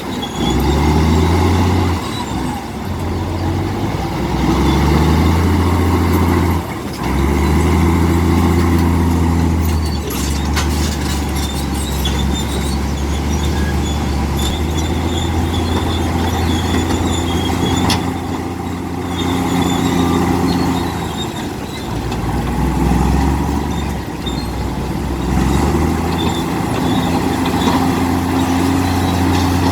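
Komatsu D65P bulldozer's heavy diesel engine working, its pitch rising and falling as it revs up and eases off, with a few sharp metallic clanks.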